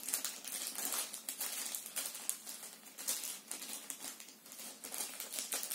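Small clear plastic bag crinkling and rustling as it is handled, in a run of irregular crackles.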